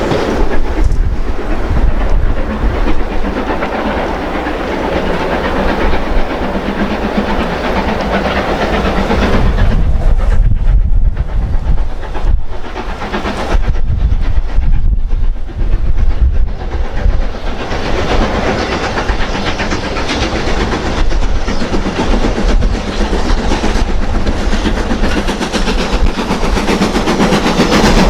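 Steam-hauled train running past, its wheels clattering over the rail joints.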